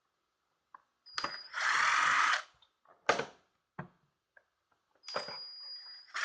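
Cordless electric screwdriver running in two short bursts, about a second in and again near the end, backing out the gauge screws. A thin high whine leads into each burst, with sharp clicks in between.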